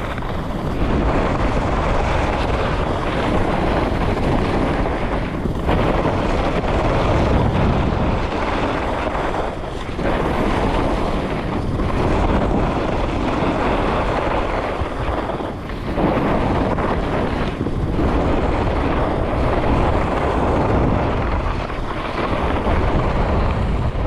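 Wind rushing over the microphone together with the hiss and scrape of skis carving down groomed snow at speed. The noise dips briefly every two to four seconds.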